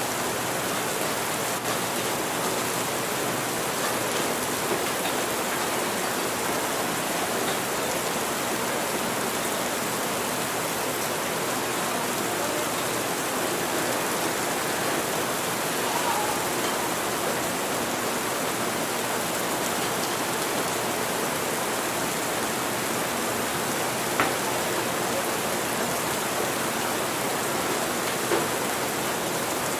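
Steady rain mixed into coffee-shop background ambience. Three brief, small taps stand out: one about halfway through and two near the end.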